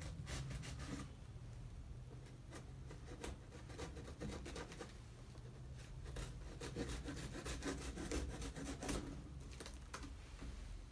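A small knife cutting the packing tape along the top of a cardboard box, with irregular short scrapes, rubs and clicks as the blade and hands work the cardboard.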